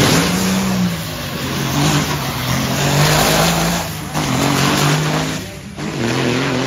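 Diesel engine of a drag-racing semi tractor at full throttle down the drag strip, loud, its note dropping and climbing back again several times as it shifts up through the gears.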